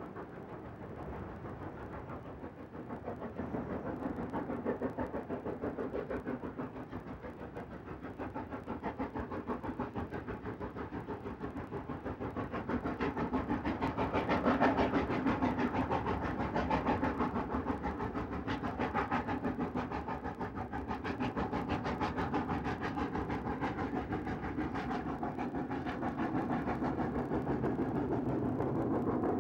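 Steam locomotive working hard at speed, its exhaust beats coming in a quick, even rhythm and growing louder as it approaches and draws near.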